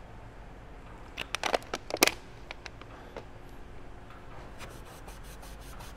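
A thin plastic water bottle crackling as it is squeezed to pour water, in a cluster of sharp crinkles loudest about two seconds in. Near the end a quick, even series of strokes starts: a cloth rag rubbing back and forth on a pine board.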